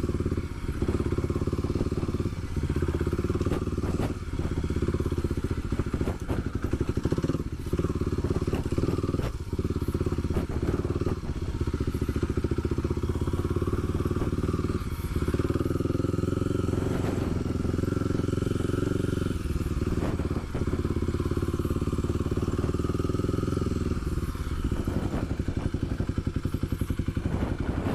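Kawasaki KLX250SF supermoto's single-cylinder four-stroke engine running while the bike is ridden, with short breaks in its note, then settling to idle near the end.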